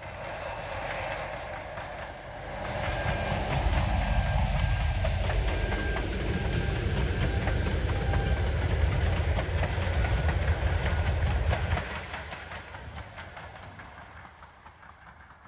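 Diesel train passing close by: deep engine rumble and wheels clicking over the rails. It builds over the first few seconds, stays loud for several seconds, then fades as the train moves away.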